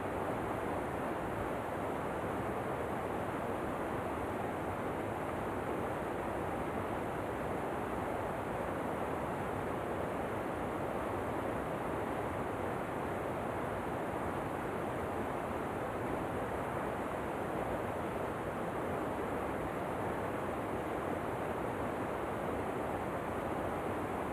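Waterfall rushing: a steady, even roar of falling water with no changes.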